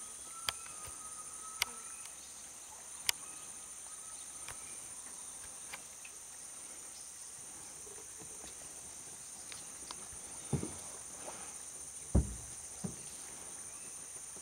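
Steady high-pitched chorus of insects, with three sharp clicks in the first few seconds and a few dull knocks near the end.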